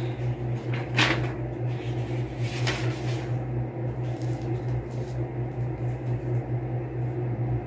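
Pages of a paper Quran being handled and turned, two short rustles about a second in and near three seconds, over a steady low hum in the room.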